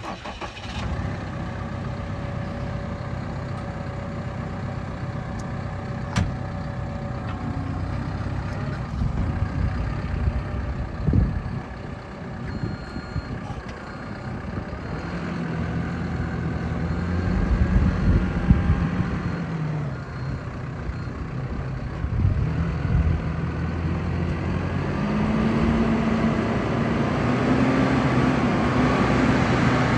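Cat 450F backhoe loader's diesel engine running, its pitch rising to higher revs around the middle, dropping back, then climbing again and holding higher near the end, with a few sharp clicks and knocks over it.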